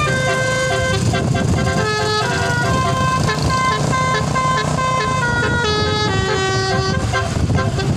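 Basuri telolet horn playing a tune of held notes that step up and down, over a dense low rumble.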